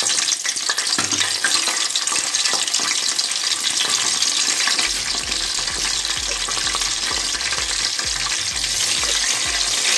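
Whole spices (bay leaves and cinnamon sticks) sizzling and crackling steadily in very hot oil in an aluminium pot: the tempering of the spices at the start of a curry base.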